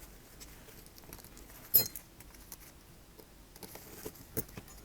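A few light clicks and taps of small phone parts and tools being handled during smartphone reassembly, the sharpest about two seconds in.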